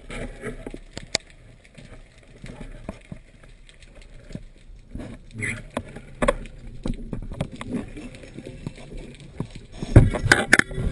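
Water moving around a GoPro action camera in its waterproof housing, with scattered clicks and knocks, and a louder cluster of knocks near the end.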